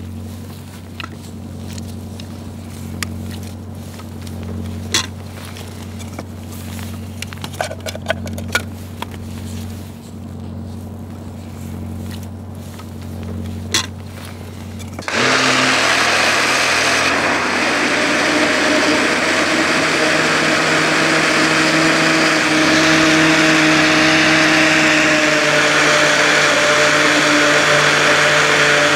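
A few clinks and knocks over a steady low hum as soup is ladled into a glass blender jar. About fifteen seconds in, a Philips countertop blender switches on abruptly and runs steadily, pureeing the cooked beetroot soup.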